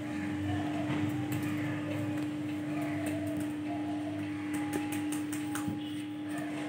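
Laptop keyboard typing: quick runs of short key clicks, densest in the second half, over a steady low hum-like tone.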